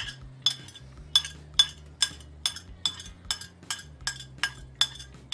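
Metal spatula clinking against a cast iron skillet as chopped onion is pushed and spread in it: sharp ringing taps about three times a second.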